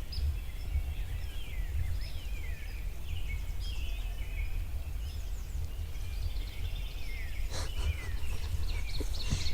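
Several small songbirds chirping and whistling in a spring woodland, many short calls overlapping, over a steady low rumble on the microphone; a couple of brief rustles near the end.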